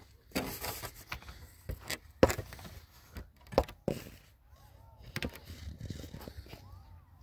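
A series of irregular knocks and thumps, two of them sharp and loud, after a short scraping rustle at the start. Faint bird calls come in over the second half.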